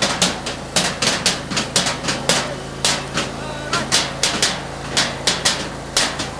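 Hand-struck festival percussion in a steady rhythm, about three to four sharp strikes a second with a short ring after some of them, following the pattern 'jarabokko, jarabokko, onjanjan'.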